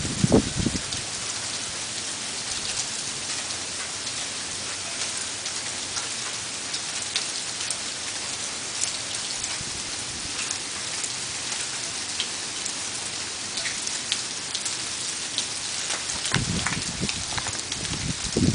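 Sleet falling steadily, a dense hiss of tiny ice pellets ticking on surfaces. A low rumble shows at the very start and again over the last couple of seconds.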